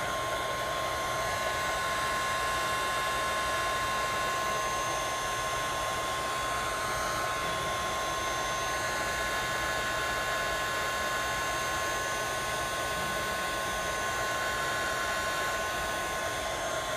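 Heat gun blowing steadily with a constant whine, heating a phone's screen glass.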